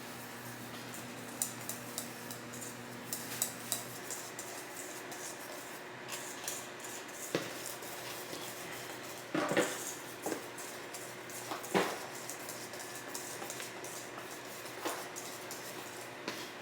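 Cake batter being beaten by hand in a mixing bowl: a utensil clinking and scraping against the bowl in irregular strokes, with a couple of louder knocks about halfway through.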